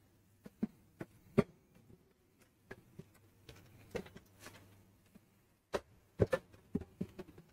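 Scattered knocks and clicks of a portable pellet grill being turned around and shifted on a table, with the rustle of plastic wrapping. The sharpest knocks come about a second and a half in and again near the end.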